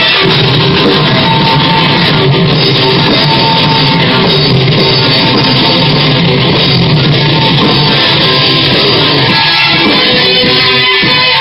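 Live rock band playing loud and steady: two electric guitars over a drum kit.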